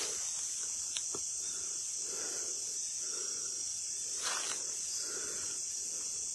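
Steady high-pitched chirring of insects, with faint soft sounds recurring about once a second and a few small clicks.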